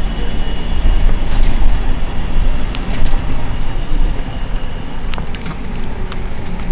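Mercedes-Benz Citaro C2 Euro 6 city bus idling at a standstill, a steady low rumble, with a few light clicks about three and five seconds in.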